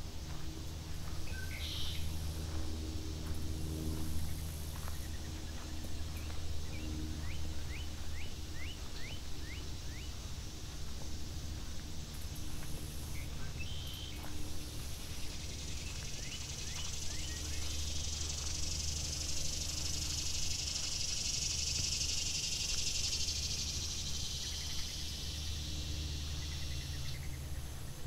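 Outdoor lake-shore ambience. A bird gives a quick series of short down-slurred chirps, and a cicada's high buzz swells in about halfway and cuts off shortly before the end, over a steady low hum.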